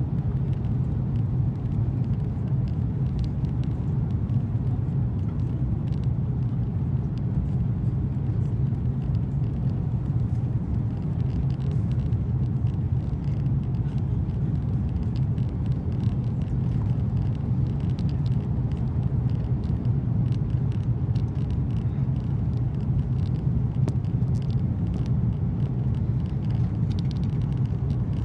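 Steady low rumble inside the cabin of an Airbus A330-200 airliner, with no change in level throughout.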